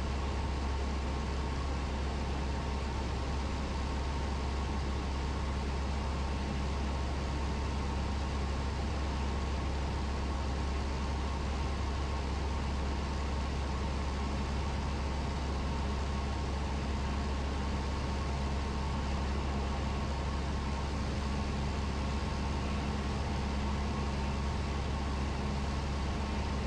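Cessna 172's piston engine and propeller droning steadily in cruise, heard inside the cabin, with a deep low hum and airflow hiss over it.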